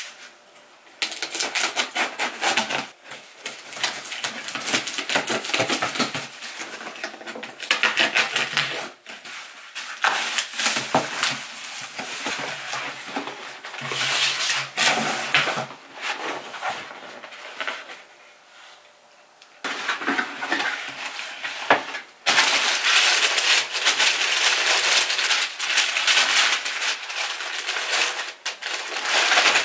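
Unpacking a cardboard shipping box by hand: cardboard flaps and tape scraping, with a plastic bag and tissue paper rustling and crinkling as a shoe box is lifted out and its wrapping pulled open. The noise comes in stretches with a couple of short pauses, the longest about two-thirds of the way in.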